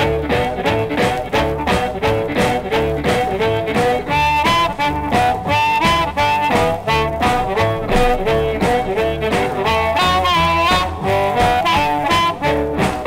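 Blues band instrumental from a 1954 record: a harmonica carries a wavering melody over a repeating bass line and a steady shuffle beat on drums.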